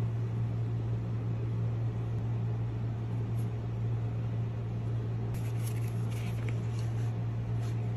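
A steady low hum throughout. From about five seconds in, light rustling and tearing as the white iPhone box's packaging is pulled open by hand.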